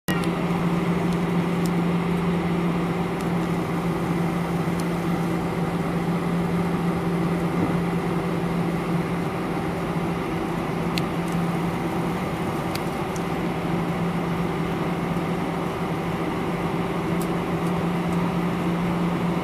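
Cabin noise of an Airbus A319 taxiing with its CFM56 engines at idle: a steady drone with a strong low hum that does not rise, and a few faint clicks.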